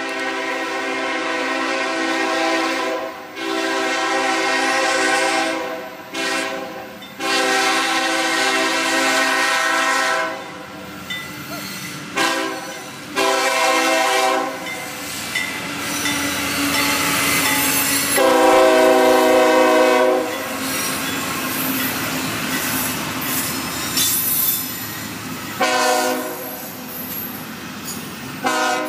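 A CSX freight locomotive's air horn blows a series of blasts as the train approaches: three long ones, then several shorter ones spaced further apart. Between and after the blasts come the steady rumble of the locomotives and the clatter of double-stack intermodal cars rolling past on the rails.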